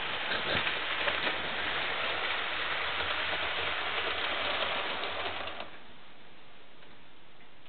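HO scale model train running on the layout's track: an even rushing of wheels on rail over a low motor hum. It cuts off about five and a half seconds in as the train comes to a stop.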